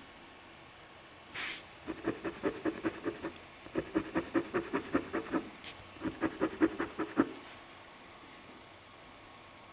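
Copper penny scratching the coating off a scratch-off lottery ticket in quick back-and-forth strokes: three runs of scraping from about two seconds in to about seven seconds in, after a short hiss.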